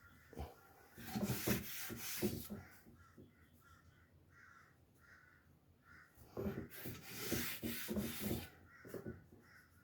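Wooden drawer of an IKEA cube storage unit rubbing and scraping along its wooden runners, with a few knocks, in two spells about five seconds apart, as talcum powder is worked onto the runners.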